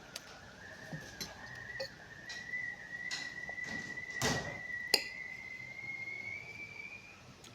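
A steady, high whistling tone that slowly rises in pitch, over small clicks and smacks of eating, with a short crunchy noise about four seconds in.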